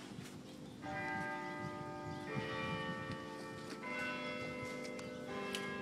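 Bells chiming a slow sequence of four notes, each at a different pitch, struck about every second and a half and left ringing on.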